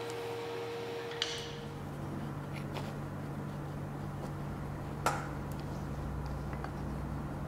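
Steady low hum of workshop room tone, with two light clicks from handling a walnut strip: one about a second in and a sharper one about two-thirds of the way through.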